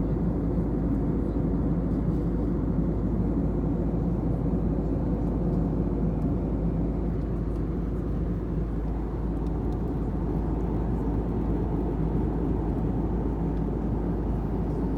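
Steady drone inside a passenger airliner's cabin, engine and airflow noise with no distinct events.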